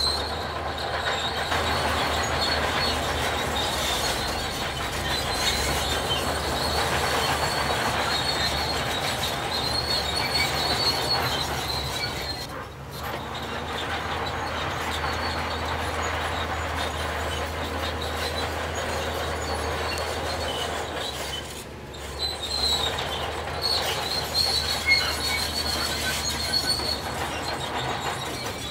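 Heavy construction machinery working: a steady low engine drone under continuous high-pitched metallic squealing, with brief breaks about 13 and 22 seconds in.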